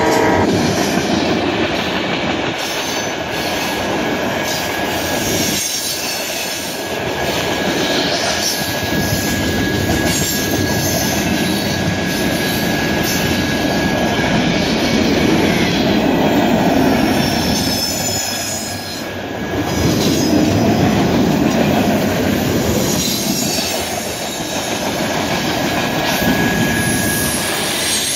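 Freight train cars rolling past at a grade crossing, a loud steady rumble and clatter of tank cars and flatcars that swells and dips as they go by. A thin, high wheel squeal runs through much of it.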